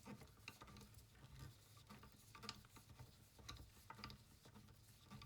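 Faint, irregular small clicks of a screwdriver undoing the screws that hold a soldering station's mains transformer.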